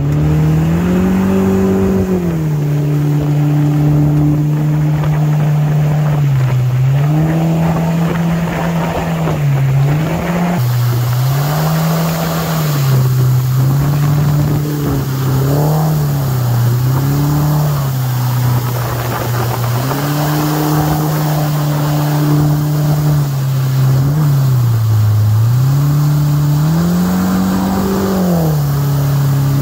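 Mercury 80 Jet four-stroke outboard (115 hp powerhead) running the boat at planing speed, its revs rising and falling again and again, over a steady rush of spray and wind.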